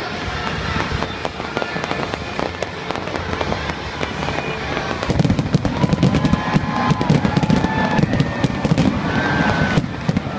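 Fireworks going off in quick succession, a run of bangs and crackles that thickens into a dense, louder volley about five seconds in and breaks off shortly before the end. Music plays underneath.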